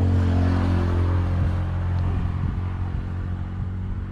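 An engine running steadily with a low hum, easing off slightly near the end.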